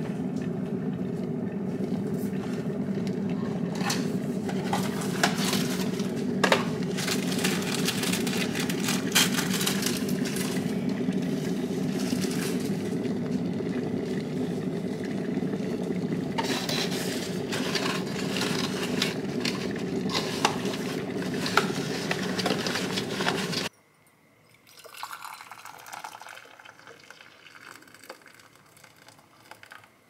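A Pohl Schmitt glass electric kettle at a rolling boil: steady bubbling rumble with many small crackles, which cuts off suddenly near the end. A fainter sound of hot water being poured into a glass cup follows.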